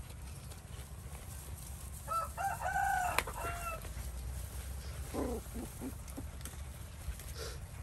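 A rooster crows once, a single arching call about two seconds in, lasting under two seconds. A few short, low calls follow a little after five seconds.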